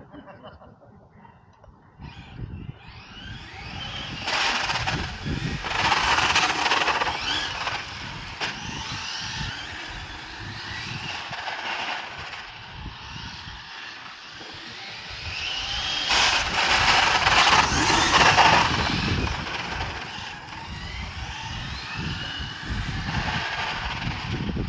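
Brushless electric RC car running on asphalt: a high motor whine rising and falling with the throttle over tyre noise. It swells loudest twice as the car passes close, about four to eight seconds in and again around sixteen to nineteen seconds.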